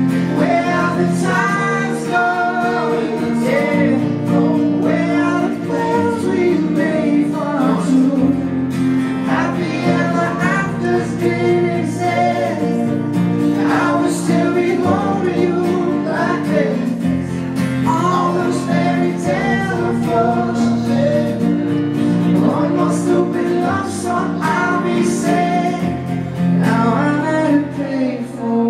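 Live acoustic pop band performance: sung vocals over acoustic guitar, playing steadily.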